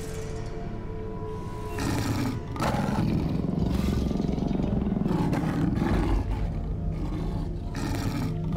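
Lion growling over background music. The growling starts about two seconds in and keeps going.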